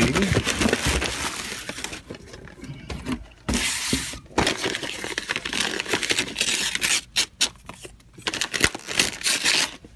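Cardboard packaging being handled: a boxed figure lifted out of a cardboard shipping box, with rustling, scraping and sharp knocks of cardboard and paper in irregular bursts and brief pauses.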